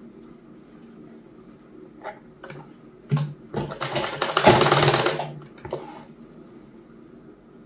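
Old black sewing machine. A few sharp clicks come as the fabric is set under the presser foot, then the machine stitches in one short run of about a second and a half, hemming a folded sleeve edge.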